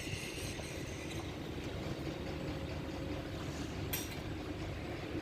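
An engine running steadily with a low rumble, with one sharp metallic clink about four seconds in.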